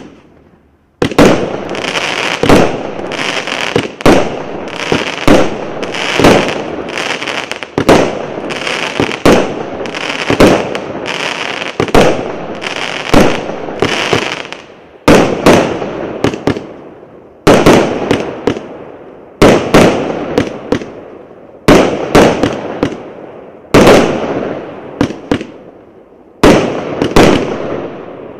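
A 99-shot, 1-inch fireworks cake firing: shots go off one after another from about a second in, each a sharp bang followed by the crackle of bursting stars. The shots come in a dense run at first, then in close groups with short lulls between.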